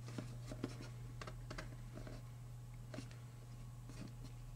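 Faint, irregular clicks and scratches of fingers handling a Nokia N900 phone and tapping its touchscreen, over a steady low hum.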